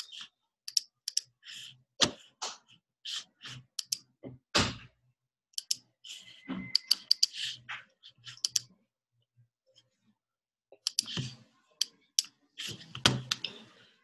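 Irregular clicks and taps of a computer mouse and keyboard, several a second, with a pause of about two seconds about two-thirds of the way through.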